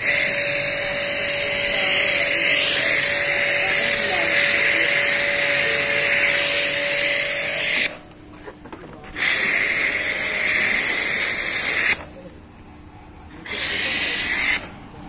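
High-pressure washer gun spraying water onto a car's body and wheel, a loud steady hiss. The trigger is released twice, so the spray comes in three spells: a long one of about eight seconds with a steady whine under it, then about three seconds, then a short burst near the end.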